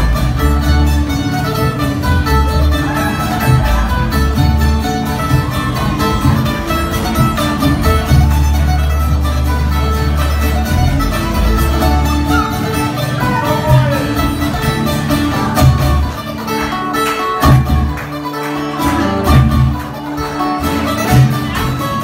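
Live ceilidh band playing a dance tune: acoustic guitar, banjo, double bass and bodhrán frame drum together, with a steady beat and a strong bass line.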